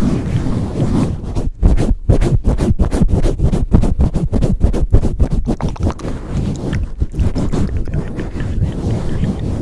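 ASMR mic pumping and swirling: hands cupping, pressing and rubbing directly on the microphone, giving a loud, muffled, low rumble of rapid irregular strokes.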